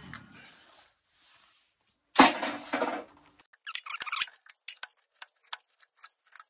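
Bundles of multi-coloured telephone wires and their connectors being pulled out of a sheet-metal equipment chassis. About two seconds in there is a loud scraping rustle, then a run of irregular light clicks and clinks as the wires and plugs knock together.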